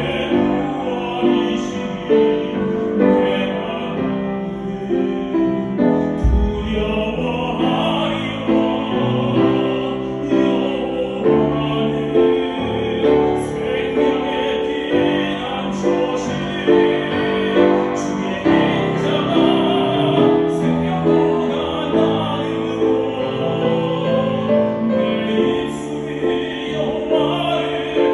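A Christian praise song performed with a solo singing voice over piano accompaniment.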